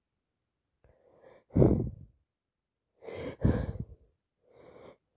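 A woman with a heavy head cold sneezing: short gasping intakes of breath build up to a sharp sneeze about a second and a half in, a second loud sneeze with a catch of breath before it comes around three seconds in, and a softer breath follows near the end.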